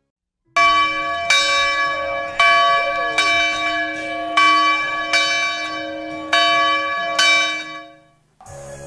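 A bell struck about eight times, roughly a second apart, each stroke ringing on over a low held tone. It begins about half a second in and fades out near the end.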